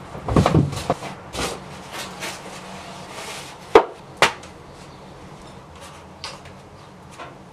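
Knocks and thuds from a person moving and handling things at a wall: a few dull thuds at the start, then two sharp knocks about half a second apart near the middle, followed by faint clicks.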